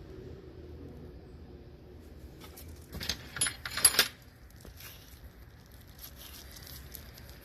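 A short cluster of sharp metallic clicks and rattles about three to four seconds in, like small metal parts or tools being handled, over a faint low hum.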